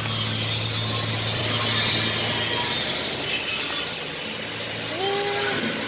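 TIG welding arc on stainless steel exhaust tubing, a steady buzz and hiss that stops about three seconds in, followed by a brief click.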